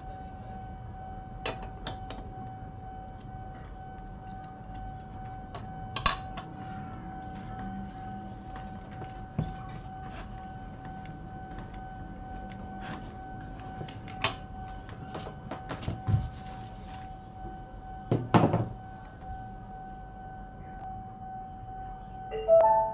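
A metal spanner and parts clinking and knocking against the engine and clutch housing of a Stihl 440 chainsaw during reassembly: scattered sharp taps, with louder knocks about six seconds in, around eighteen seconds and near the end. A steady thin hum runs underneath.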